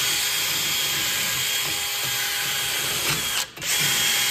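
Aerosol brake cleaner spraying onto a new brake rotor in a long, steady hiss, with one short break about three and a half seconds in. It is washing off the oil that new rotors are packed with to stop rust, which would otherwise contaminate the brake pads.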